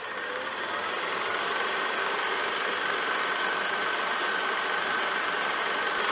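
A steady, noisy drone with a faint high whistling tone running through it, swelling in over the first second.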